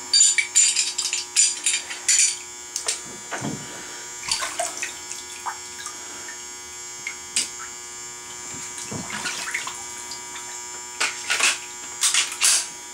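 Glock 23 pistol being reassembled by hand: scattered clicks and knocks of metal and polymer parts, a quick cluster in the first couple of seconds and more later, over a steady electrical hum.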